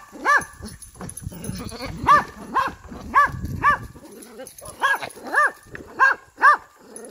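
A fainting-goat buck in rut calling while he courts a doe: about nine short, yelping calls that rise and fall in pitch, mostly in quick pairs, with low rustling from the goats moving on the dry leaves.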